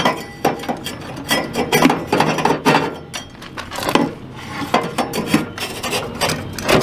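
Irregular scraping, rubbing and knocking as a furnace flue is pushed and worked into place in an RV's Dometic furnace.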